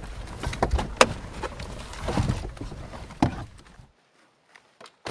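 Car door being opened and people shifting and climbing out of the car, with several sharp knocks and rustling over a low rumble. The rumble and noise cut off abruptly about four seconds in, leaving only a few faint ticks.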